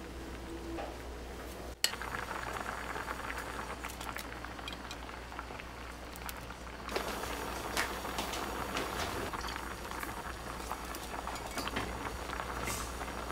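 Pot of noodle soup at a rolling boil, bubbling and crackling steadily, with a sharp click about two seconds in. Small clinks and splashes come as vegetables are dropped in, and the bubbling grows louder from about seven seconds in.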